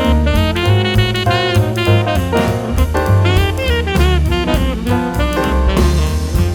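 Background jazz music: a saxophone-like melody bending in pitch over bass and a drum kit.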